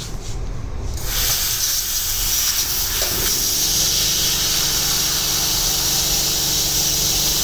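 Handheld laser cutting head cutting 1 mm stainless steel sheet, with a loud steady hiss of the gas jet and spark spray that starts about a second in. A steady low hum joins about three seconds in.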